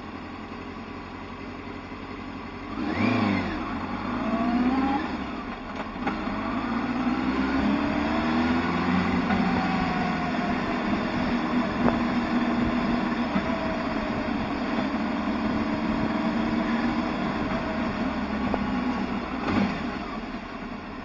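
Motorcycle engine idling, with a brief rev about three seconds in, then pulling away and climbing in pitch as the bike accelerates, before running steadily at cruising speed and easing off near the end.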